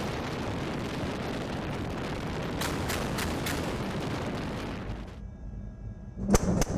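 Mk 110 57 mm naval gun firing over steady wind rush on the microphone, with a quick string of four shots about a third of a second apart a few seconds in. Near the end the sound cuts to one loud, sharp shot.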